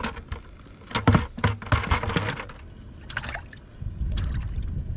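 A crappie dropped into a bucket of water, splashing and knocking against the sides in a quick cluster, with a few smaller splashes after.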